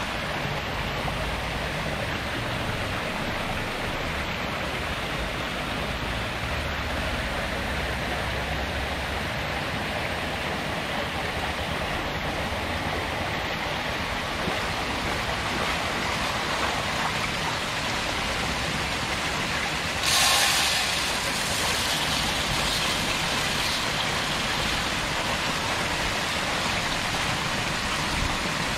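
Steady rushing and splashing of water pouring from many pipe outlets into crowded catfish tanks, with a brief louder swell about two-thirds of the way through.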